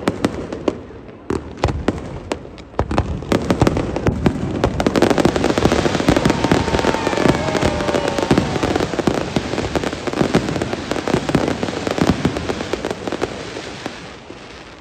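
Fireworks display finale: rapid bangs and crackles from bursting aerial shells and crackling stars. They thicken into a dense, near-continuous crackle about three seconds in and die away near the end.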